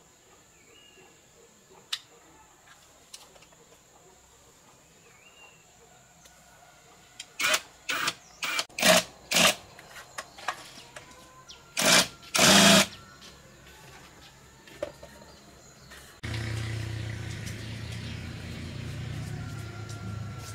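A run of loud, sharp knocks and scrapes, about a dozen, the longest near the end of the run. A few seconds later a small motor starts with a steady low hum. In the quiet opening seconds there is a faint steady high insect whine and a couple of short chirps.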